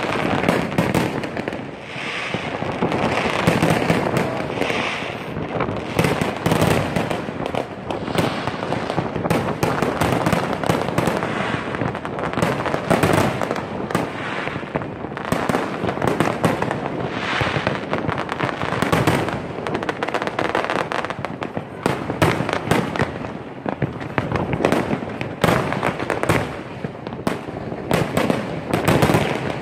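A big fireworks display: many shells bursting in quick succession, their sharp bangs following one another closely and overlapping without a pause.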